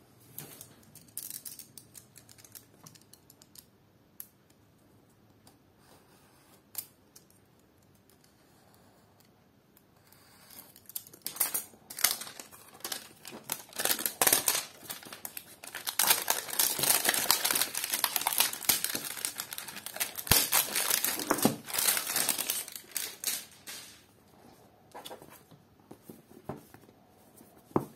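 Plastic shrink-wrap being torn and peeled off a smartphone box: after some light handling taps, a long stretch of crinkling and crackling starts about a third of the way in and dies away near the end.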